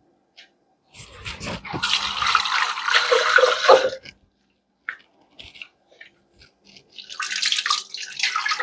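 Blended pepper purée being poured from a blender jar into a cooking pot: two stretches of liquid pouring and splashing with a few light knocks between them.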